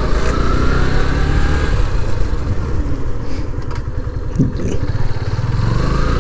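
Motorcycle engine running under a rider on the move, its pitch rising as the bike picks up speed, with road and wind noise.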